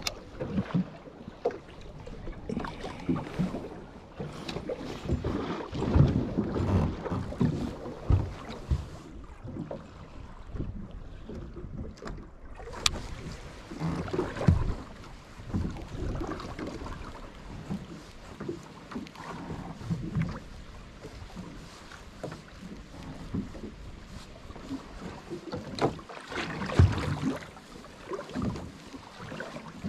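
Water sloshing and slapping against the hull of a small boat drifting on the sea, in uneven swells, with wind on the microphone and an occasional sharp knock.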